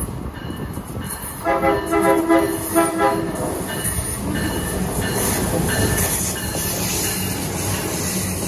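A train horn sounds in two or three blasts, about a second and a half in, lasting some two seconds in all. Steady rumble and wheel noise from the passing train follow.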